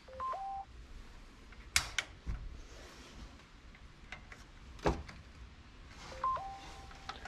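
Spark igniter clicking a few times while the pilot of a gas water heater is being lit. A short three-note electronic chirp, low, high, then a held middle note, sounds near the start and again about six seconds later.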